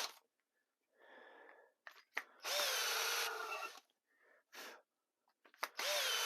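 Power drill run in short bursts, spinning a pen-mill bit that trims the end of a pen blank square down to its brass tube. There are three runs: a quieter one about a second in, a longer loud one in the middle, and another starting near the end.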